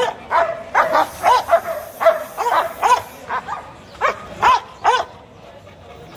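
A bulldog-type dog barking over and over, about two short barks a second, each rising and falling in pitch. The barking stops about five seconds in.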